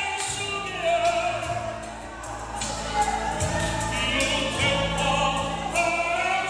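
Church worship music: voices singing a slow song over sustained bass notes that change every second or so.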